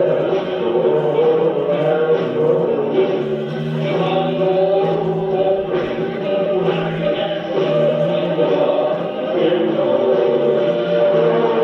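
Several voices singing together in long held notes.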